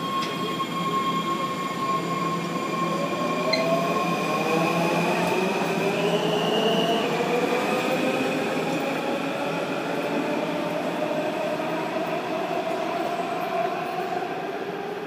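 Washington Metro subway train pulling out of the station, its motors giving a whine of several tones that rise slowly in pitch as it gathers speed, over steady wheel and rail noise.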